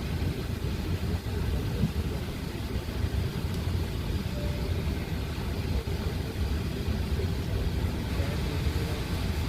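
Steady low rumble inside an Airbus A380's cabin, its engines running near idle as it taxis after landing.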